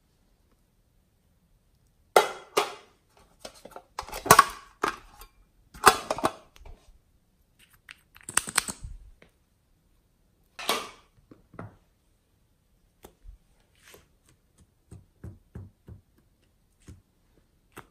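Small plastic capsules, toy pieces and a glitter tube being handled, with short bursts of plastic clicking and scraping. Near the end come several softer, lower pops as pieces are pressed into glossy slime.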